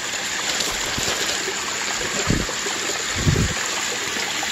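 Water of a pondless waterfall running steadily over rocks, with two dull low thumps a little past halfway.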